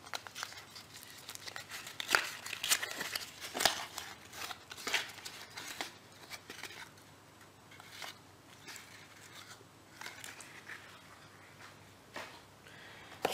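A small white cardboard parts box being handled: its tuck flap opened and a potentiometer with wire leads pulled out, giving scattered rustles and light clicks of cardboard and plastic. The handling is busier in the first six seconds and thins out to occasional clicks later.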